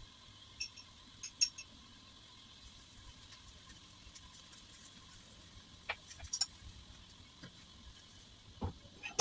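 Onion, tomato and curry-powder base sizzling under a glass lid in a wok on a gas burner: a low steady hiss with scattered pops and ticks, a few of them in a cluster about a second and a half in and again about six seconds in.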